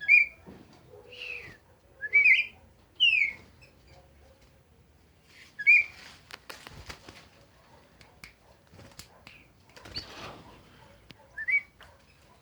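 A bird giving short, loud whistled notes, several sliding down in pitch, spaced a second or more apart, with a brief rustling clatter in between.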